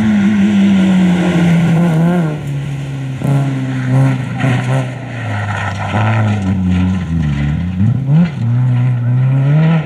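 Citroën Saxo rally car's engine at full attack, its note falling and rising several times as the driver brakes, changes gear and gets back on the throttle through a corner. There is a sharp drop and quick rise in revs near the end as the car runs wide onto the grass.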